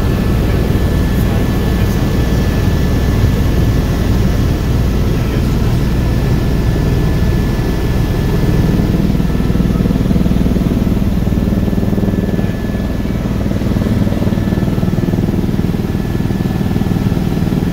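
Helicopter in flight, heard inside the cabin: a loud, steady drone of rotor and engine, with a thin steady whine high above it.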